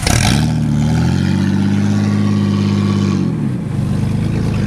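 Jeep TJ engine revving up in the first second, held at steady revs for about two seconds, then easing off a little after three seconds.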